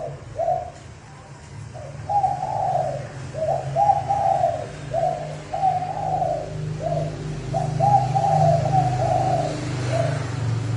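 Male spotted dove cooing fast and hard, one coo phrase after another with barely a pause: the excited, driving call used as a lure to provoke wild doves. A steady low hum lies underneath.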